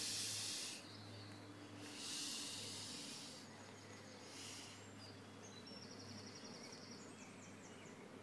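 Air hissing out of an inflatable pillow as it is squeezed flat, in three bursts: two of about a second each, then a short one about four and a half seconds in.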